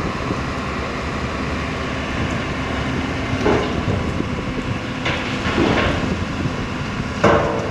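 Kobelco excavator's diesel engine running steadily under load, with several short scraping, crunching bursts from the bucket working rock and gravel, the loudest near the end.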